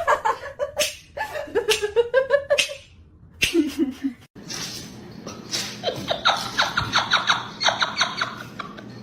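A person laughing in rapid bursts, hardest near the end.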